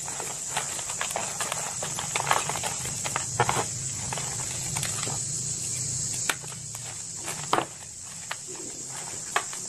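Hands squeezing and crushing gym chalk powder: soft crunching and crumbling with many small crackles and a couple of sharper snaps past the middle, over a steady hiss.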